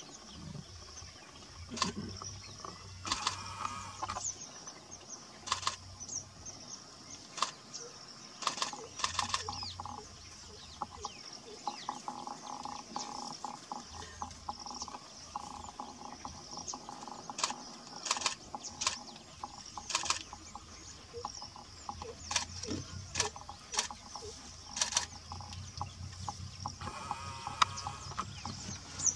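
Asian elephant feeding in scrub: irregular sharp snaps and cracks of twigs and branches breaking as it pulls at the bushes, over a steady high hum and bird calls from the bush.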